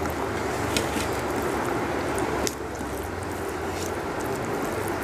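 Fingers mixing rice and curry on a steel plate: soft squishing with a few light clicks, over steady background noise.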